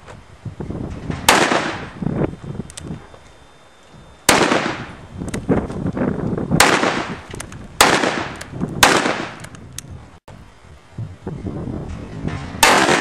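Ruger Super Blackhawk .44 Magnum revolver fired six times at uneven intervals, one to four seconds apart, each sharp shot trailing off in a long echo.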